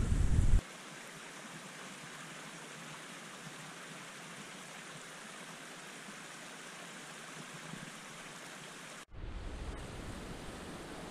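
Small mountain stream splashing over rocks in a little waterfall: a steady, even rush of water. Wind buffets the microphone briefly at the start and again for the last two seconds.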